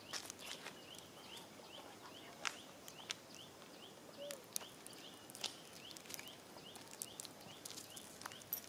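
Faint outdoor ambience: a short rising chirp repeated about three times a second, with scattered sharp clicks and ticks.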